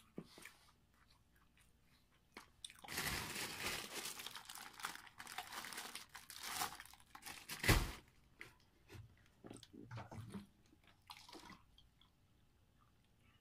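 Crunchy eating close to the microphone: several seconds of dense crunching and chewing, ending in a sharp thump about eight seconds in, then scattered small clicks and taps.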